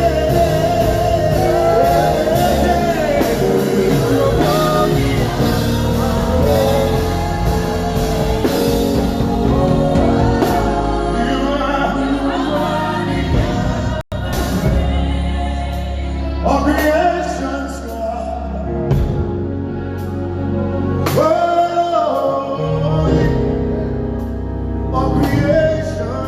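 Live gospel music: singing over a full band with bass and drums, amplified through a church sound system. The sound drops out for an instant about fourteen seconds in.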